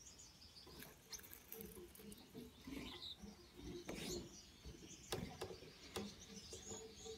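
Faint, high-pitched chirping of Gouldian finches, with a few soft clicks.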